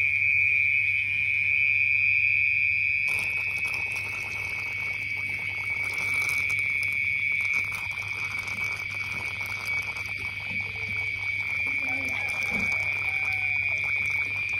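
Steady night chorus of crickets, one unbroken high shrill tone, over a low steady hum, with rustling from handling starting about three seconds in.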